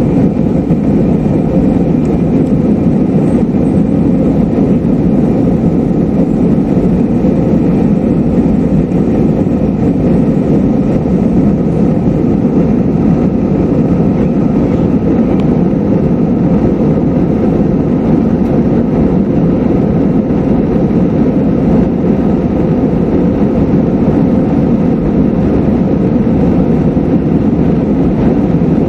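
Steady cabin noise of an Airbus A320-214 climbing after takeoff: its CFM56 engines at climb power and air rushing past the fuselage, heard from inside the cabin as an even, loud low rumble that does not change.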